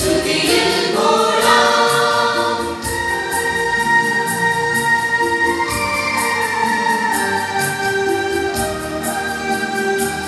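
Mixed church choir of women and men singing a hymn in Malayalam in several parts, with long held notes, over a steady light ticking beat about three times a second.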